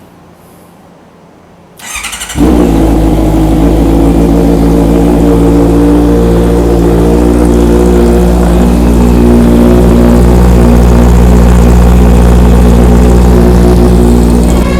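2020 Honda CBR650R's inline-four engine started about two seconds in: a brief crank, then it catches and runs at a steady loud idle.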